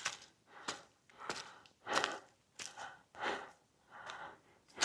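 A man breathing hard in quick, regular breaths, a little over one a second, while walking, with the odd footstep on the trail: he is exhausted from the climb.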